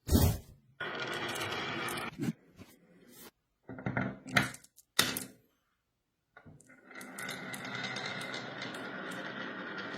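Marbles and plastic toy parts on a block marble run: short bursts of clicking, clacking and knocks broken by abrupt cuts, then from about seven seconds in a steady rattling roll.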